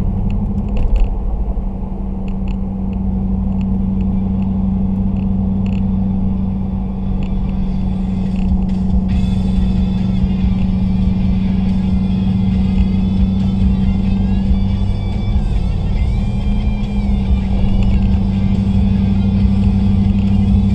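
Steady in-cabin drone of a 2010 Ram 1500 pickup cruising: an even engine hum over low road rumble. Music from the truck's stereo plays underneath, clearer from about nine seconds in.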